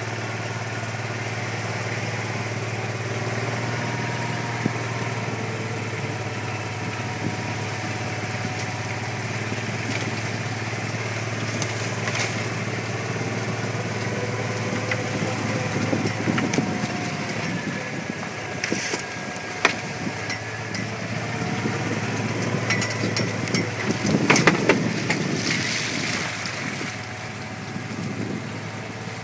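A vehicle engine running with a steady low hum as it moves slowly, with scattered clicks and crackling over it, the loudest stretch in the last third.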